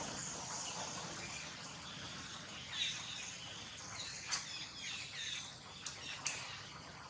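Outdoor ambience: a steady background hiss with a few faint short chirps, and three sharp clicks in the second half.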